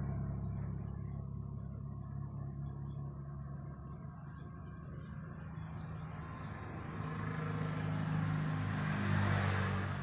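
Low engine rumble of a motor vehicle going by, fading over the first few seconds and growing louder again in the last few.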